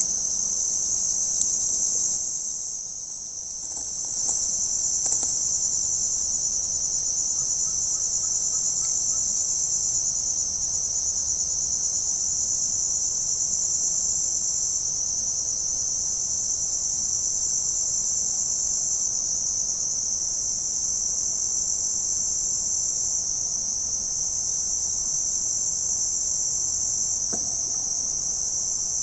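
A steady, high-pitched drone of insects calling, which fades briefly a couple of seconds in and then resumes.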